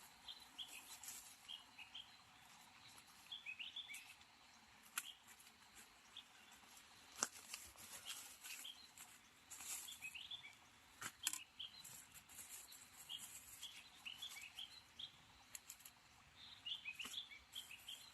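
Faint small birds chirping in short, repeated calls, with scattered sharp snaps and bits of rustling.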